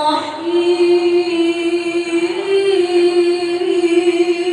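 Melodic Quran recitation: one voice holding a long, drawn-out note on the basmala, between "ar-Rahman" and "ar-Rahim". The pitch stays nearly steady, with small bends.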